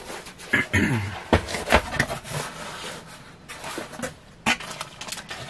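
Jewelry and its packaging being handled by hand: a string of clicks, taps and light knocks, unevenly spaced.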